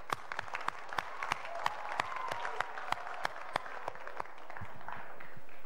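Audience applauding, with single claps standing out over a murmur of voices; the clapping dies away about four seconds in.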